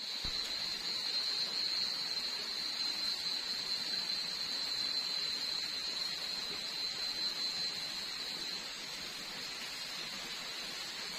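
Steady night-time insect chorus: a constant high-pitched drone over an even hiss, fading a little near the end.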